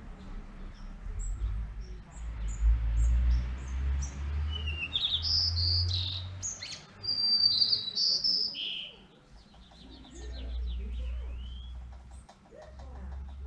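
Small birds chirping and calling in short high notes and quick trills, busiest in the middle, over a low rumble.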